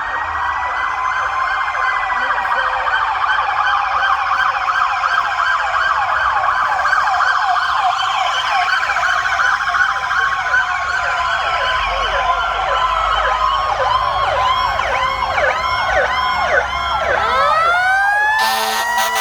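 Several fire-truck sirens sounding together: electronic sirens wailing and yelping fast, over the slow rising and falling wind of a Federal Q mechanical siren. Near the end a loud, steady horn blast cuts in.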